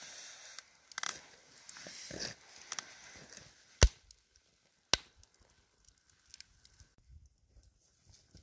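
Wood campfire crackling, with scattered small snaps and two loud sharp pops about a second apart.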